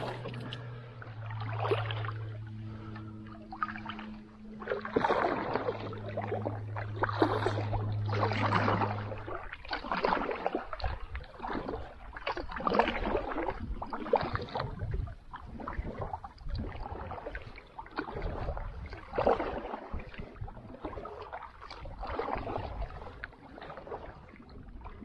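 Canoe paddle strokes in calm pond water, a splash and gurgle about once a second. A low steady hum runs underneath for roughly the first nine seconds, then stops.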